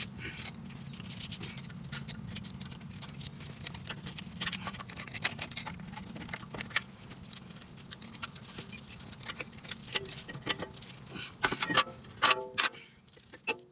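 Metal tools and brake parts clinking and clattering during front brake pad work. Irregular small knocks and clinks run throughout over a steady low hum, with a brief squeak-like sound and louder clanks near the end.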